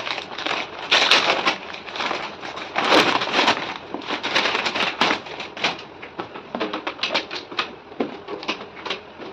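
A parcel's packaging being handled and opened: crinkling and rustling, loudest about one and three seconds in, then a run of quick clicks and crackles.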